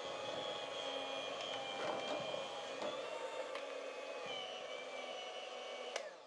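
Electric hand mixer running steadily with a high motor whine as its beaters work thick cassava-flour dough in a metal pot. It switches off with a click near the end.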